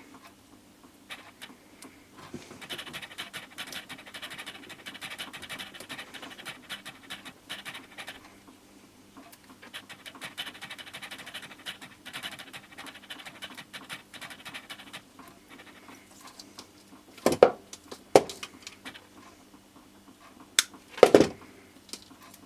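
Quiet scratchy rustling from hands labelling wiring loom wires, in two long stretches, then a few sharp clicks or knocks near the end.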